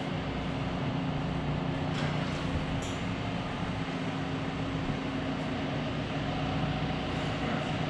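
A machine running steadily: an even low hum holding one pitch, with a couple of faint ticks about two and three seconds in.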